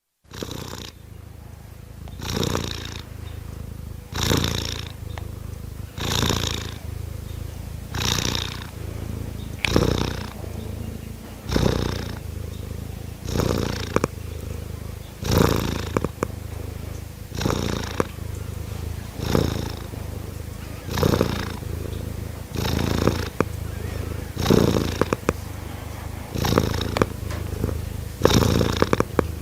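Domestic cats purring: a steady low rumble that swells with each breath, about every two seconds.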